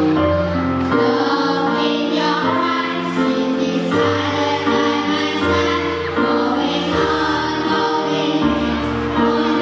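A song sung by a group of voices together, a children's choir, over an instrumental backing with a bass line.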